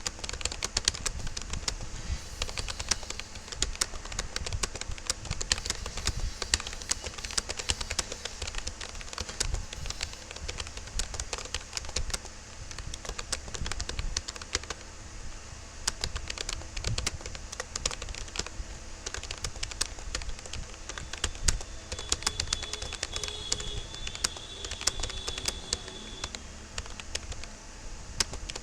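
Fast touch typing on a Rapoo computer keyboard: a rapid, continuous stream of key clicks.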